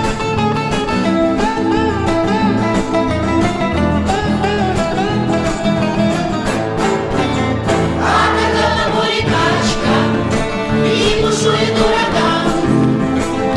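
Music: the instrumental part of a song, with guitar, bass and a wavering melody line but no sung lyrics.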